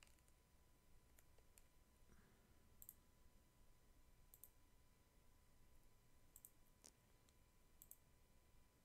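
Faint computer mouse clicks, several coming in quick pairs, over near-silent room tone.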